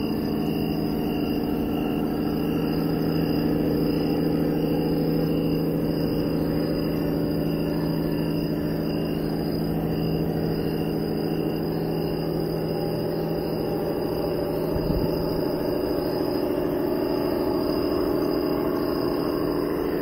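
A steady motor hum, with a thin high whine above it.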